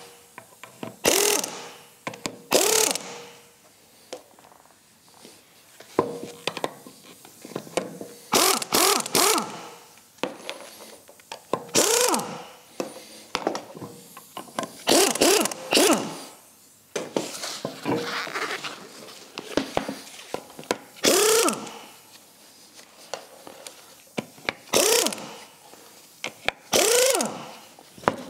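Pneumatic impact wrench loosening a race car's wheel nuts in about a dozen short bursts, each under a second: a hammering rattle with the air motor's whine swelling and dropping.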